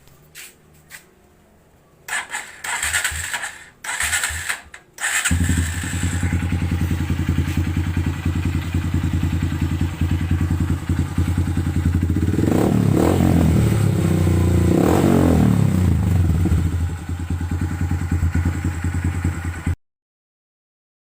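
Honda XR150L's single-cylinder four-stroke engine breathing through a replica Akrapovic exhaust: a few short bursts of cranking, then it catches about five seconds in and idles steadily. It is revved up and back down twice in the middle, and the sound cuts off suddenly near the end.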